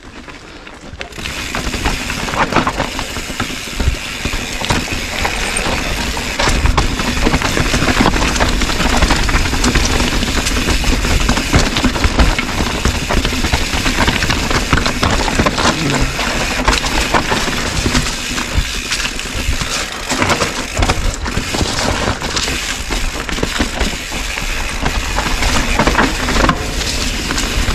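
Mountain bike rolling fast down rocky singletrack: tyres crunching over loose rock and dry leaves and the bike clattering over bumps, under a steady rush of wind on the microphone. It starts quieter and grows louder over the first couple of seconds as it picks up speed.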